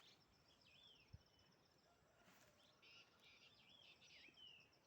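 Faint birdsong outdoors: several short whistled chirps that rise and fall, a few near the start and a busier run in the second half, over a faint steady high-pitched trill.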